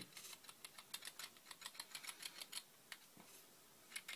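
Faint, quick light clicks of a small glass jar being shaken and tapped over a pot to sprinkle baking soda out, several a second, then a short lull and a few more clicks near the end.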